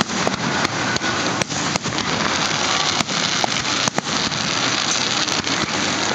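Aerial fireworks display: many sharp bangs of shells bursting at irregular intervals over a continuous crackling hiss.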